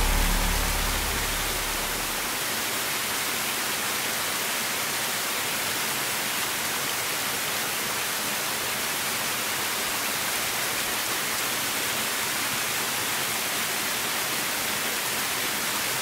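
Steady, even rush of water, mostly a high hiss with little low rumble.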